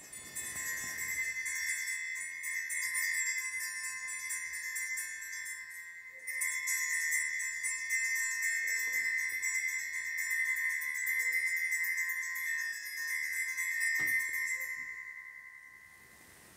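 Altar bells rung at the elevation of the host during the consecration: a shimmering, jingling peal in two long stretches, the second starting about six seconds in and fading out near the end. A light knock comes about fourteen seconds in.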